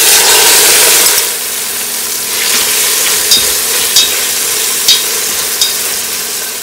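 Raw shrimp dropped into hot coconut oil with fried garlic in a pot: a loud sizzle, strongest for about the first second, settling into steady frying as the shrimp are stir-fried. A few sharp clicks sound over the sizzle.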